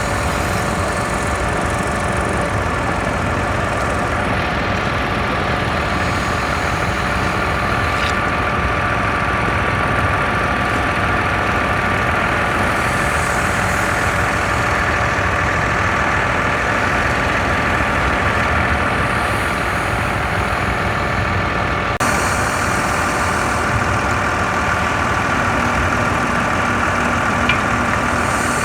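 Heavy diesel engines of concrete trucks and a concrete pump running steadily during a slab pour, a continuous mechanical drone with a steady whine.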